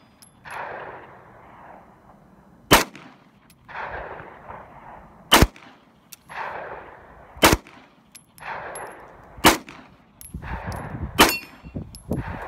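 Springfield XD9 9mm pistol firing five single shots about two seconds apart, each sharp crack followed by a delayed echo rolling back off the surrounding hills.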